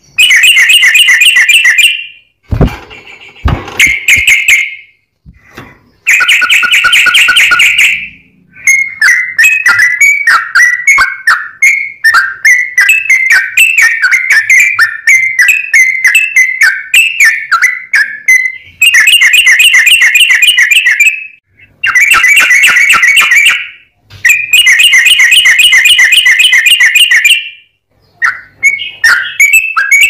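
Yellow-vented bulbul singing loudly: bursts of rapid, chattering whistled notes about two seconds long, separated by short pauses, with a longer warbling run of rising and falling notes in the middle.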